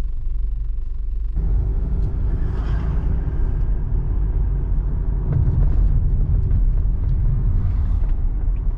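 Car driving along a road: a steady low rumble of engine and tyres, which grows fuller and noisier about a second and a half in.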